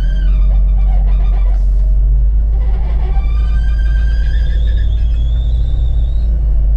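A city bus running, with a heavy low engine rumble and a whining tone on top that rises and falls in pitch.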